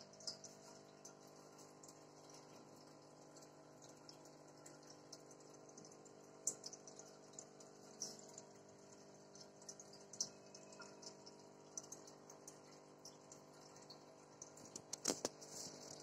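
Aquarium air stone bubbling, with irregular small pops and splashes of bubbles at the water surface and a louder little cluster of them near the end, over a steady low hum from the tank's pump.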